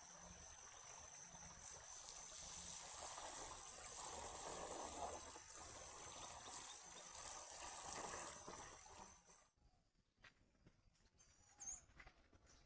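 Faint river water trickling and running, cutting off abruptly about nine and a half seconds in. After that it is near quiet, with a single short bird chirp near the end.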